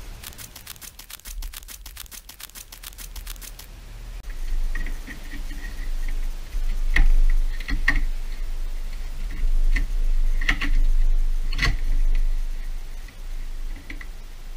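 Hand work on a BMW E39's bonnet latch and release cable: a fast, even run of clicks for the first few seconds, then scattered metallic clicks and knocks over a low hum.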